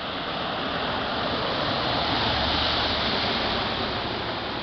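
Floodwater rushing and gurgling down into a street storm drain, a steady rush of water that swells a little louder around the middle and then eases off.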